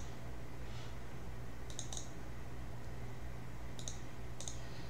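Computer mouse button clicks, in quick pairs a few times, as folders are opened and closed in a file browser, over a steady low electrical hum.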